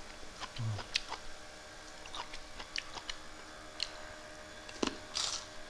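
Close-up eating sounds of someone eating with his hand: scattered small mouth clicks and smacks of chewing, with a louder cluster of smacks near the end as food goes into the mouth.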